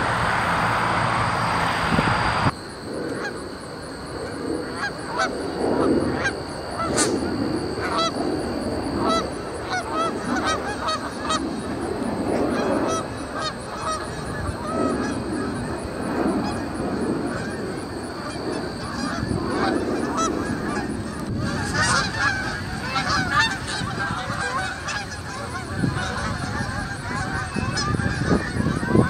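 A steady rushing noise that cuts off suddenly about two and a half seconds in. After it, a flock of Canada geese honks and calls over and over, with short overlapping honks, some higher-pitched calls joining in near the end.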